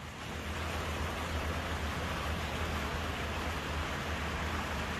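Steady rushing of sewage water pouring from a drain pipe into a river, with a low rumble underneath.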